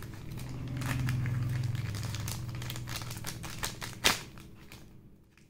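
Clear plastic accessory pouch crinkling as it is handled and opened, with one sharp click about four seconds in, over a low steady hum. The crinkling fades toward the end.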